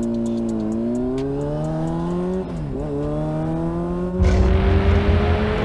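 Motorcycle engine accelerating: its pitch rises, dips sharply at a gear change about two and a half seconds in, then climbs again. From about four seconds in, a loud low rushing noise joins it.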